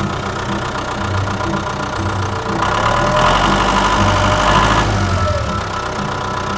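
Construction vehicle engine running steadily, growing louder about two and a half seconds in and easing back just before five seconds.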